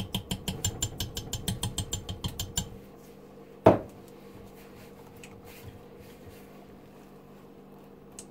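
A metal utensil clinking rapidly against a stainless steel pot holding thick hot process soap, about nine strokes a second for roughly two and a half seconds. Then one sharp knock about three and a half seconds in.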